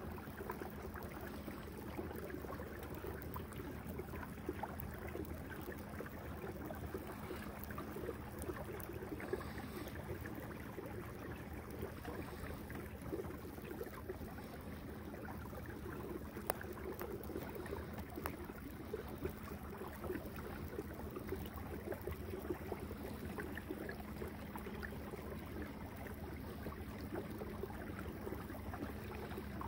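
Water gurgling and lapping along the hull of a motor-driven kayak under way, with the motor's steady hum underneath.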